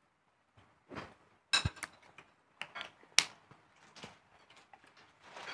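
Scattered clinks and taps of spoons and hands on plates and bowls during a shared meal, with a crackle as a plastic water bottle is handled. The sharpest clicks come about a second and a half in and about three seconds in.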